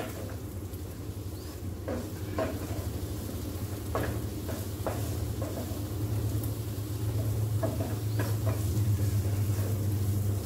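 Onion and garlic frying in oil in a frying pan, stirred with a spatula that scrapes and taps the pan now and then. A steady low hum runs underneath.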